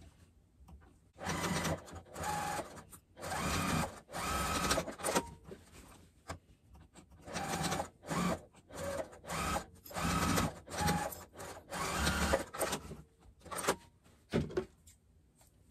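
Domestic sewing machine stitching a short boxed-corner seam in a series of short stop-start runs, with backstitching at the beginning and end of the seam.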